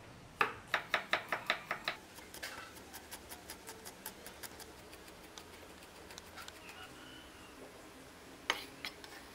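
Kitchen knife chopping garlic cloves on a wooden cutting board: a quick run of sharp knocks of the blade on the board, about five a second, then lighter, quieter chops, and one loud knock near the end.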